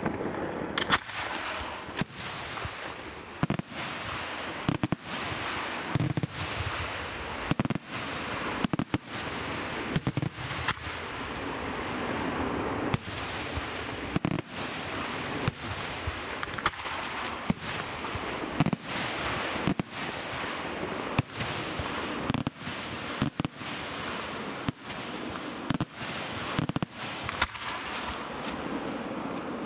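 Aerial fireworks shells bursting in quick succession, a sharp report about once a second and sometimes two close together, over a steady crackling rush from the display.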